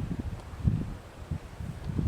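Wind buffeting the microphone: uneven low rumbling gusts.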